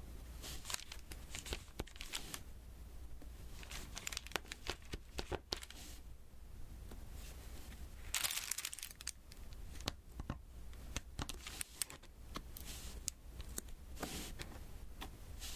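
Close-up diamond painting: scattered small clicks and taps of resin drills being pressed onto the sticky canvas, mixed with crinkling of the plastic cover film, and a longer rustle about eight seconds in.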